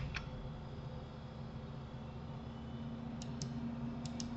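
Computer mouse clicking: three pairs of short, sharp clicks, each pair quick, over a faint steady hum.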